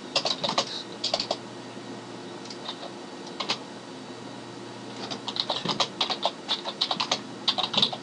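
Typing on a computer keyboard: a short run of keystrokes at the start, a pause broken by a single keystroke, then a quicker run of keystrokes in the last three seconds.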